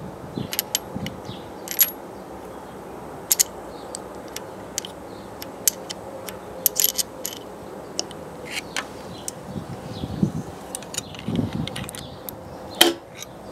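Scattered sharp metallic clicks and taps, the loudest near the end, from a screwdriver and fingers working the valve train of a BMW K75 cylinder head during valve clearance adjustment.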